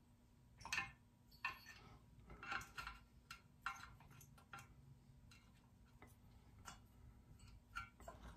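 Faint, irregular clicks and light taps, about a dozen in all, from hands working on the flywheel and ignition points of an old McCulloch chainsaw engine while the points gap is being set.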